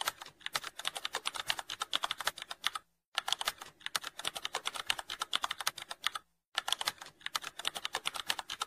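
Keyboard typing sound effect: a fast, steady run of key clicks, broken by two brief pauses, about three seconds in and again just past six seconds.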